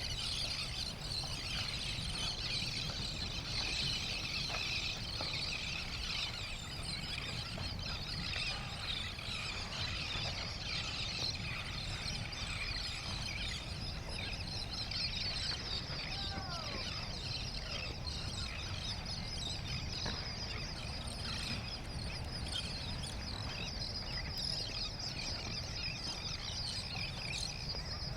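Many small birds chirping at once in a dense, continuous chorus, over a steady low rumble.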